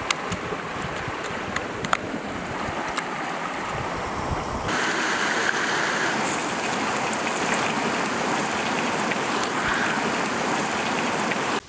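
A wooden pestle knocking in a small mortar as garlic and greens are pounded, over a steady rushing hiss. About five seconds in it cuts to a steady sizzle of pork belly, dried chillies and then greens frying in oil in a wok.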